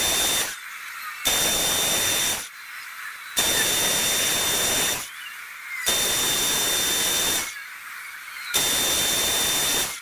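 Metal lathe taking repeated cuts on a small metal workpiece: a burst of loud hissing cutting noise with a thin whistle in it about every two seconds, each one to two seconds long, as the tool is fed in and backed off. The lathe runs more quietly in between.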